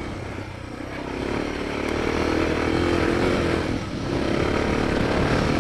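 Suzuki DR650 dirt bike's single-cylinder four-stroke engine running under way. It is quieter for the first second, then the throttle opens and it pulls steadily, with a brief lift-off about four seconds in.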